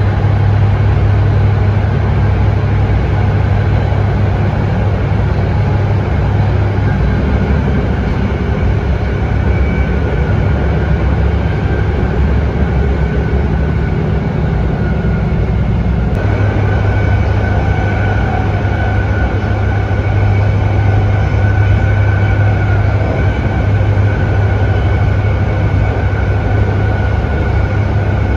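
Inside an older-fleet BART rapid-transit car running at speed: a loud, steady rumble of wheels on rail and running gear. About halfway through the sound changes abruptly and a steady higher whine joins the rumble.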